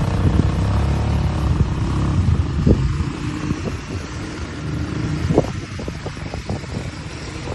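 Four-wheeler (ATV) engine running under way, a rough low rumble that eases off about halfway through. A few sharp knocks cut through it, the loudest about two and a half seconds in and again at about five and a half seconds.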